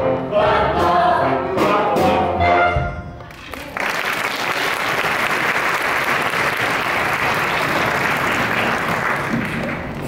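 Cast ensemble singing with the pit band, ending a stage-musical number about three seconds in, followed by steady audience applause.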